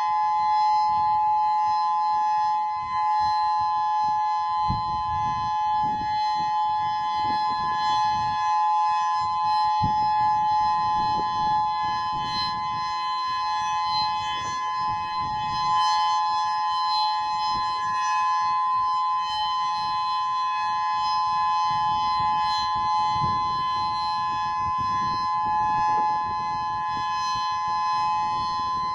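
Federal Signal Modulator 8032B electronic outdoor warning siren sounding its steady Alert signal: a loud held two-note chord that does not rise or fall. A gusty low rumble runs underneath.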